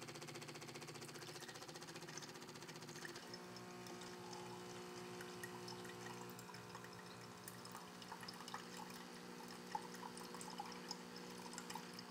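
Bosch Tassimo pod coffee machine's pump humming while it dispenses a thin stream of steamed milk from a latte creamer T-disc, pouring into a cup of espresso. The hum pulses rapidly at first and settles into a steadier tone about three seconds in.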